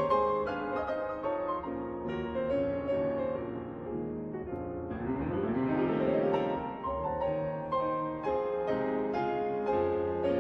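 Solo piano music, with a quick run of notes rising and falling about five seconds in.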